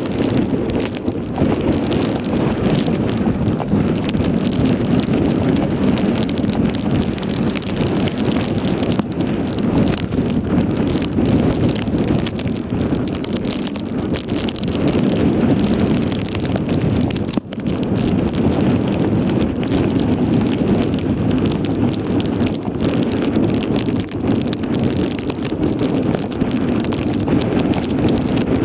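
Wind buffeting the microphone: a steady, loud rushing noise that dips for an instant about two-thirds of the way through.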